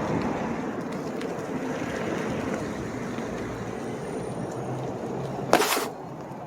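Wind on the microphone and rolling noise while riding a Onewheel XR electric board, with a short loud rush about five and a half seconds in, after which it turns quieter.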